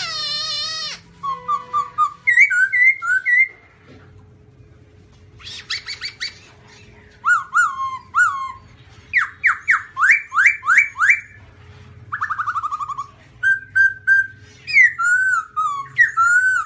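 Black-throated laughingthrush (Garrulax chinensis) singing a varied run of clear whistled phrases: repeated rising slurs, quick couplets and a fast trill, with a short pause a few seconds in.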